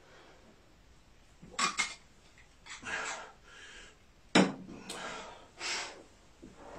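Water bottle set down on a hard tabletop with a sharp knock about four seconds in, followed by a smaller click. Softer handling and rustling noises come before and after.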